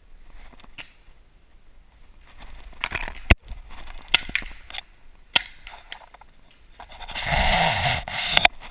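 Paintball pistol firing several sharp pops. The first and loudest comes about a third of the way in, and a few more follow roughly half a second apart. Near the end there is a loud scraping rustle lasting about a second and a half.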